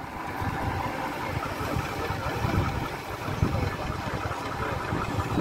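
Small engine of a ride-on miniature diesel locomotive running steadily at low speed.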